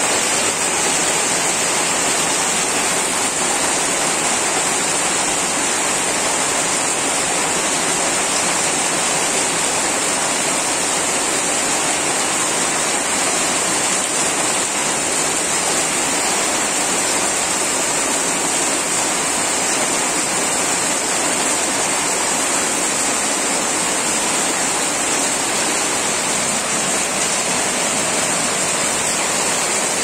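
Torrential rain pouring down steadily, a dense, even rush with no let-up.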